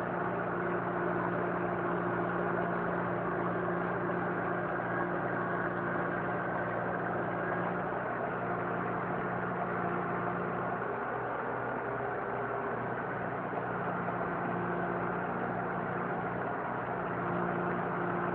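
Diesel engine of a tractor-based backhoe loader running at a steady, even speed.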